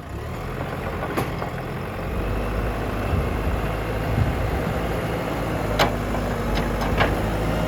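JCB 3DX backhoe loader's diesel engine running steadily, getting louder about two seconds in, with one sharp knock early and a few sharp knocks near the end.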